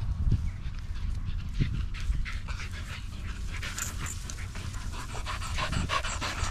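Dogs panting close by as they run through long grass, with quick rustling strokes that thicken from about two seconds in, over a steady low rumble.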